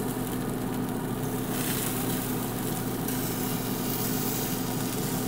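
Pit Boss Lexington Onyx Edition 500 pellet smoker running: a steady mechanical hum from its fan, with no change throughout.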